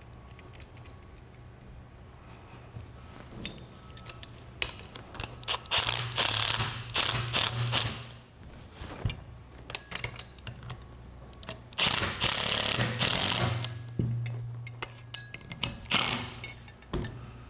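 Cordless impact driver running down the bolts that fasten a bracket to a power steering pump, in two bursts of about two seconds each. Short metal clicks and clinks come between the bursts as the parts are handled.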